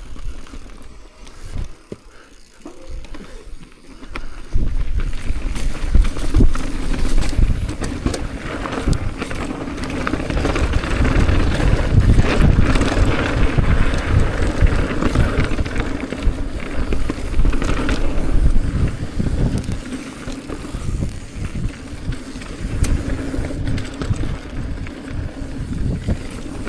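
Downhill mountain bike running down a dirt trail: continuous tyre rumble with rapid knocks and rattles from the bike over rough ground. It is quieter for the first few seconds, then loud.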